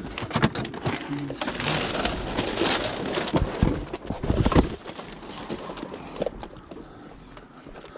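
Clattering, knocking and rustling of discarded junk being handled and rummaged through, with several heavier knocks about three and a half to four and a half seconds in, then quieter handling.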